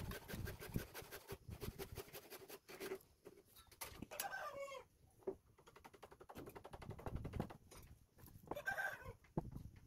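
Faint animal calls: one call that falls in pitch about four seconds in and another near the end, with light rapid scratching during the first few seconds.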